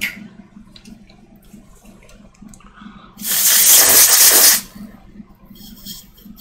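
Aerosol freeze spray hissing in one burst of about a second and a half, a little after three seconds in. It frosts a powered iPhone 6s logic board so that a component heating from a short shows up by melting the frost.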